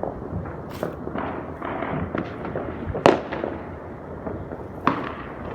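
Fireworks going off: a steady crackle of many distant bangs and pops, with one loud bang about three seconds in and another near the end.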